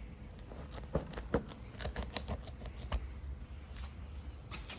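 Tyre plug kit's reamer tool being worked into a puncture in a tyre to enlarge the hole, its rasp scraping the rubber in irregular clicks and scrapes.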